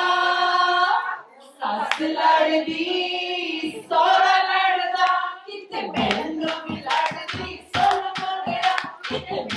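A group of women singing a Punjabi wedding folk song together in long held lines. From about six seconds in, a dholki drum and hand clapping keep a fast even beat under the singing.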